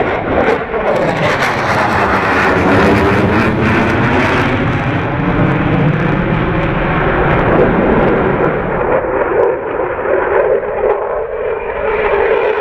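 Sukhoi Su-34's twin jet engines, a loud, continuous roar as it flies past at low level, with a sweeping, phasing swish in the first few seconds.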